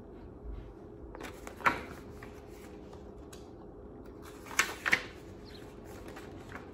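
Pages of a paperback picture book being handled and turned: paper rustling with sharp flicks, once about a second and a half in and again about five seconds in.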